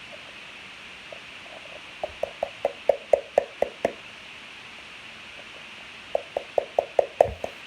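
Slime being worked by hand, giving two runs of quick wet squelching pops, about five a second, over a steady background hiss.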